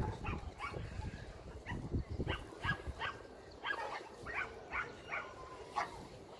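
A dog barking repeatedly in short, high-pitched yaps, two or three a second, stopping shortly before the end.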